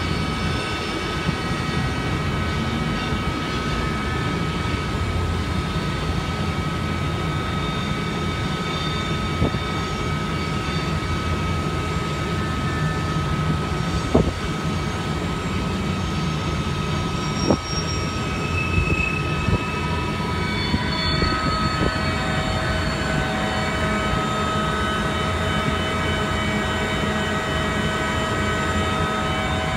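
Steady rumble of a long freight train of tank cars rolling past, with several thin, high, steady ringing tones over it. There are three sharp clicks about a third and halfway through.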